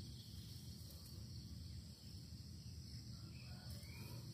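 Faint steady high-pitched drone of insects in the grass, over a low rumble.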